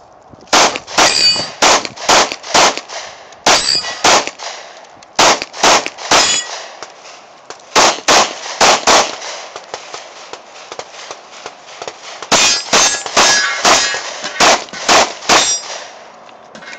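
Pistol fired in rapid strings at steel targets, the hit plates ringing with a high ping after the shots. About five strings of two to nine shots, with a pause of about three seconds before the last and longest string.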